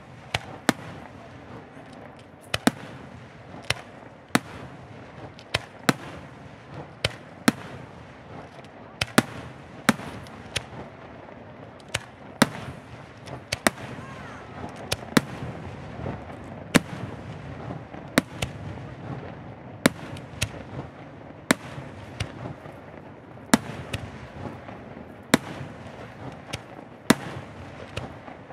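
Aerial fireworks shells bursting one after another in a display: sharp bangs about once a second over a steady haze of noise.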